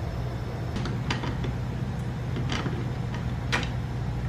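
A wrench loosening the rear axle nut of an Uberscoot electric scooter: a few scattered, irregular metallic clicks and ticks, the loudest about three and a half seconds in, over a steady low hum.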